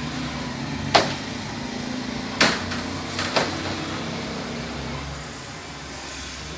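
Metal-framed tile display panels knocking against each other as they are swung through on a display rack: three sharp knocks in the first half, the first two the loudest, over a steady low hum.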